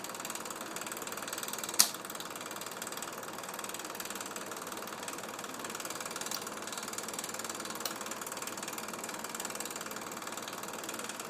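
Steady mechanical running of a vacuum system's pump, with a fast, even rattle, and one sharp click about two seconds in.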